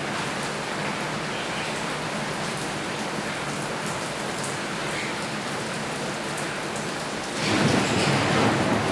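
Water from a shower spray falling steadily like rain, growing louder about seven and a half seconds in.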